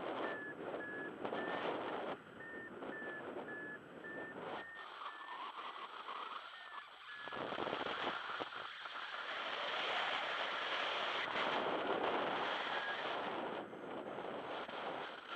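Paragliding variometer beeping in a string of short beeps that step slightly up and down in pitch, dying away a little past halfway, over rushing wind noise on the microphone in flight. The wind grows louder in the second half.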